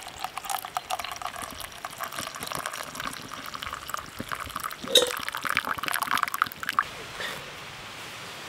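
Hot boiled birch sap poured in a stream from a stainless steel kettle into an enamel mug, the pitch of the splashing rising as the mug fills, stopping about seven seconds in. A sharp clink about five seconds in is the loudest moment.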